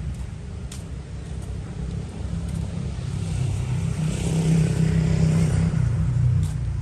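Road traffic: a motor vehicle passes close by over a steady low rumble. Its sound swells about four seconds in and eases about two seconds later.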